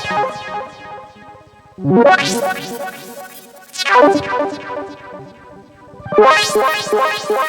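UVI 8-Bit Synth patch layering a SID-style sound and a chiptune sound, playing three fast arpeggiated phrases about two seconds apart, each fading out. The SID layer's filter is swept by a sine LFO.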